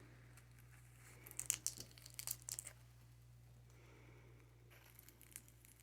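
Faint crackling and small clicks of a boiled balut egg's shell being picked at and handled, in a short cluster about a second in and a few more near the end.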